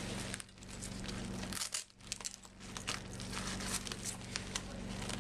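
Crinkling and rustling of the avalanche airbag pack's fabric and folded airbag as hands press it into the compartment and work the zipper, with many small clicks throughout.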